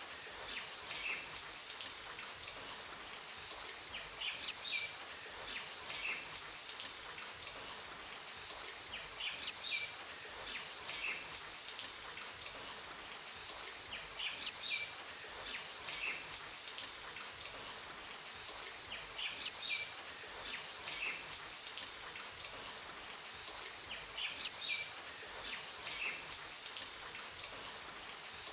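Nature-ambience soundtrack of steady rain hiss with small birds chirping in short clusters that recur about every five seconds.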